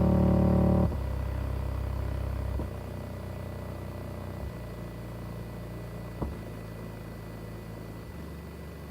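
Deep, steady bass notes from music, loud for about the first second and then dying away in steps, with a single click about six seconds in.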